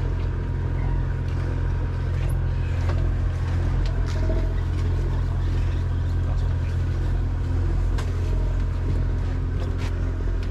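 Steady low drone of a party boat's engine running, with a few faint clicks and knocks from tackle on deck.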